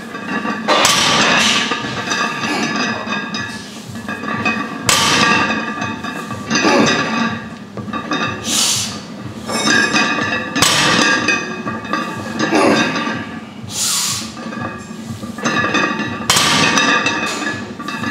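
Barbell loaded with bumper plates set down on the gym floor every few seconds during heavy deadlift reps, with music playing throughout.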